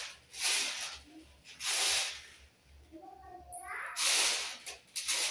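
Dried chickpeas swishing and rattling across a metal tray as they are swirled by hand to be picked over, in about three long sweeps with pauses between.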